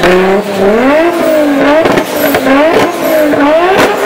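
Turbocharged R34 Nissan Skyline engine being blipped while stationary: the revs rise and fall about six times in quick succession, with sharp cracks near several of the peaks.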